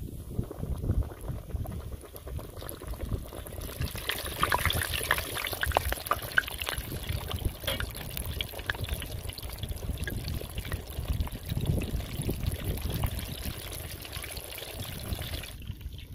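Flour-coated boneless fish sizzling and crackling in hot oil in a clay pot, the frying growing louder about four seconds in and cutting off near the end.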